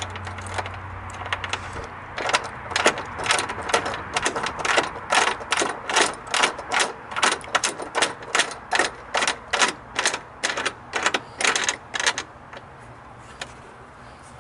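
Mounting hardware of a kayak rod-holder T-bar being tightened down: sharp clicks in a steady rhythm, about two to three a second, for some ten seconds before they stop.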